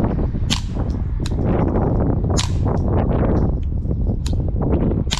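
Suppressed .22 rimfire shots with CCI standard velocity ammunition: five or so sharp cracks fired one after another, roughly a second apart. A steady low rumble runs underneath.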